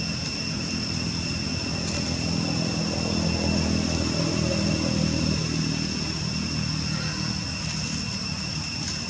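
A motor engine runs with a steady low hum, swelling a few seconds in and then easing off. Two steady high-pitched tones sound over it.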